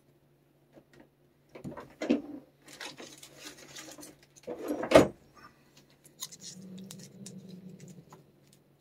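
Rustling and clicking handling noises, with one sharp loud knock about five seconds in, then a low steady hum toward the end.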